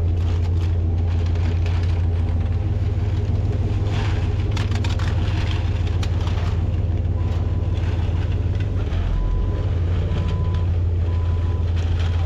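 A vehicle engine running steadily with scattered clanks and rattles. From about seven seconds in, a faint beep repeats about once a second.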